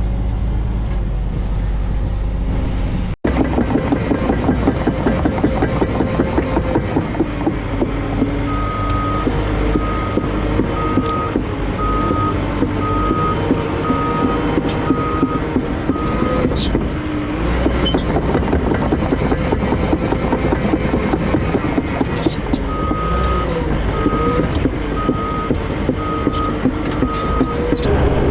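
Diesel earthmoving machinery running, with a backup alarm beeping steadily, a little over once a second, in two runs: one through the middle and one near the end.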